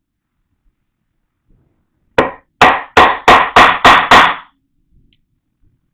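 Mallet blows driving a wood chisel into wood to chop a mortise: seven sharp knocks in quick succession, roughly three a second, starting about two seconds in.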